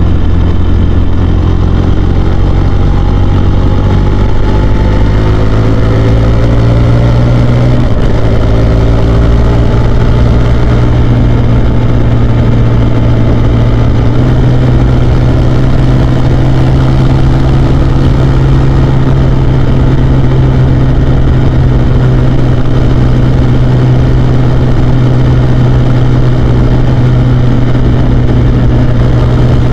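Husqvarna Svartpilen 401's single-cylinder engine running under way, loud throughout. Its note climbs over the first several seconds, shifts at about eight seconds, then holds steady.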